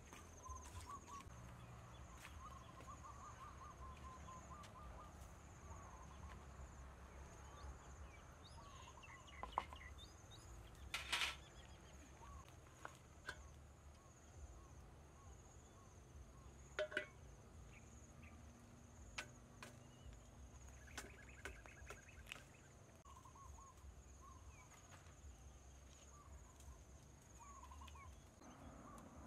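Quiet rural outdoor ambience: a steady high-pitched insect drone, with small birds chirping now and then. A few sharp clicks and knocks stand out, the loudest about eleven and seventeen seconds in.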